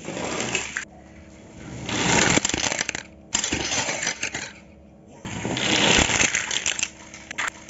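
Small plastic toy cars rolled across a hard table top, their wheels rattling and clicking in four bursts of one to two seconds each.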